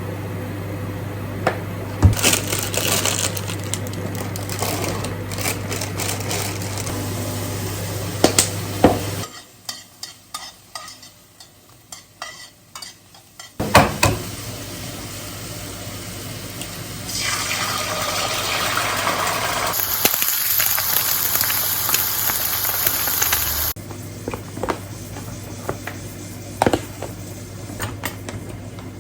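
Home kitchen cooking sounds: clinks and knocks of utensils and dishes over a steady appliance hum, with a stretch of hissing, like food sizzling in a pan or a tap running, from about 17 to 24 seconds in.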